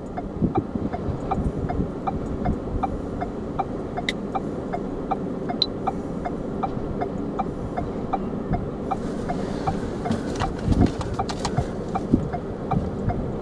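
Low steady rumble of an idling vehicle with a regular light ticking, about two to three ticks a second.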